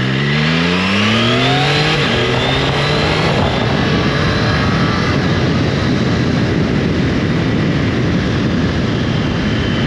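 Triumph Tiger 660's inline three-cylinder engine accelerating, its pitch rising for about two seconds and then holding briefly. From about three seconds in, a steady rush of wind on the microphone at road speed covers most of the engine.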